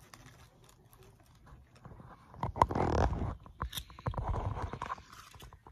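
Loud, close rustling and scraping with many small clicks, starting about two seconds in and lasting a few seconds. It sounds like handling noise from the phone being moved and rubbed against fabric or bedding right at the microphone.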